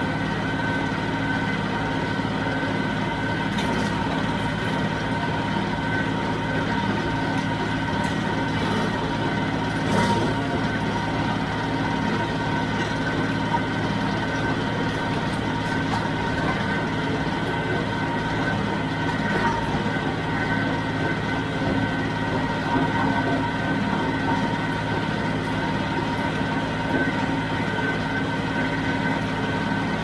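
A John Deere 5055D diesel tractor runs steadily, driving a John Deere 348 square baler. Its engine note is mixed with a steady high whine from the machinery, and a few sharp knocks stand out, the loudest about ten seconds in.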